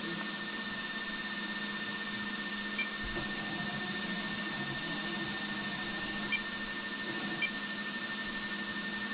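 Steady electric whine and hum from the powered-up RC model. From about three seconds in to about seven seconds in, small geared motors whir as the turret turns and the gun moves, with a few light clicks.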